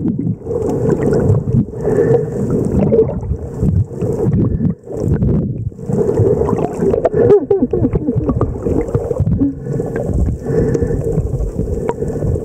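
Underwater water noise picked up by a snorkeler's camera, a loud, uneven rushing and gurgling that swells and dips every second or two.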